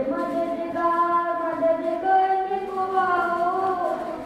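A boy's voice chanting a mourning lament (noha) into a microphone. It is a slow melodic line of long held notes, gliding from one pitch to the next.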